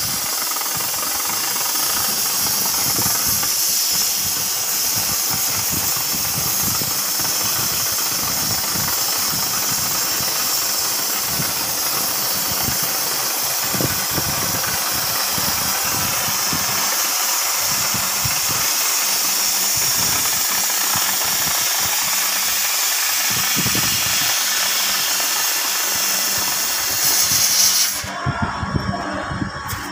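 CNC cutting torch hissing steadily as it cuts through 50 mm steel plate. The hiss stops about two seconds before the end.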